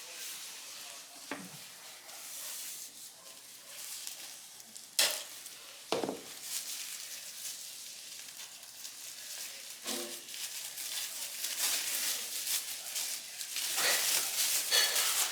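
Steady crackling, rustling noise, like movement through dry ground cover. Two sharp knocks come about five and six seconds in, and the rustling grows louder near the end.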